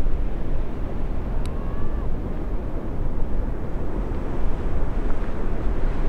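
Steady low rumbling noise of wind buffeting the microphone, with the wash of breaking ocean surf behind it.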